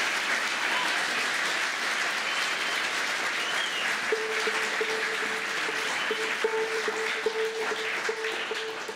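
Audience applauding after a song. About four seconds in, a string instrument on stage starts sounding one repeated note over the clapping.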